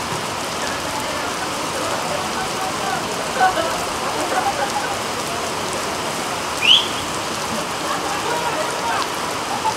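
Heavy rain falling steadily, with faint distant shouting from players. About two-thirds of the way in there is one short, high, rising whistle-like chirp, the loudest moment.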